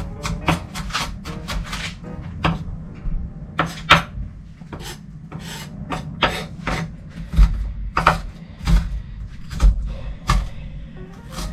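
Kitchen knife chopping onion on a cutting board: irregular sharp knocks, two or three a second, with background music underneath.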